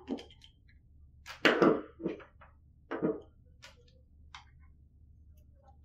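Handling noises on a desk: a series of short knocks and clicks from cables and parts being moved by hand, the loudest about a second and a half in, over a low steady hum.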